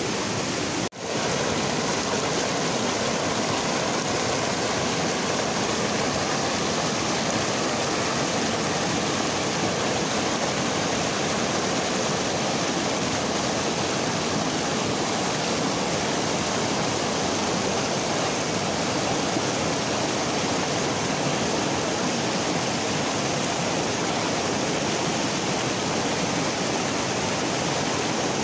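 Shallow river rapids rushing over boulders: a steady, loud rush of white water. The sound briefly cuts out about a second in.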